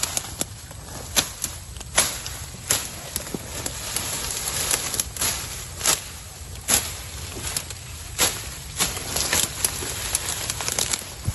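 Footsteps and rustling through dense undergrowth of ferns and shrubs, with irregular sharp crackles and snaps of stems and twigs as the plants are pushed aside.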